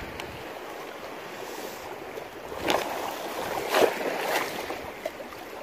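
Shallow seawater washing and sloshing over a reef flat, with a few louder splashes about two and a half to four and a half seconds in.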